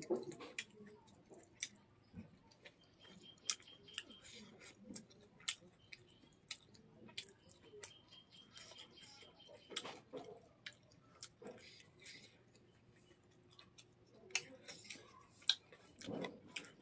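Close-miked eating by hand: scattered short, wet clicks from mouth and fingers, with soft chewing, as rice and curry are mixed on a banana leaf and eaten.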